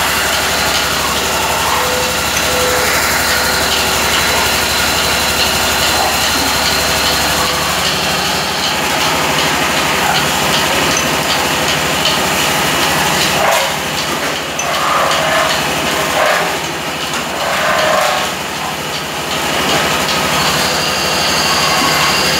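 Metal-spinning lathe running, its hand-held spinning tool pressing and rubbing against the turning aluminium sheet as it is formed over a mandrel into a bucket body. A steady machine noise with several steady whining tones, unsteady for a few seconds past the middle.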